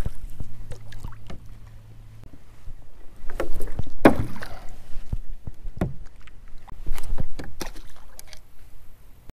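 Scattered knocks and clunks on a plastic sit-on-top kayak as the paddler handles gear, the loudest knock about four seconds in.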